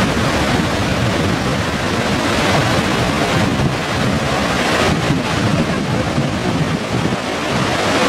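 Whitewater rapids rushing loudly and steadily over and between granite boulders in a mountain river.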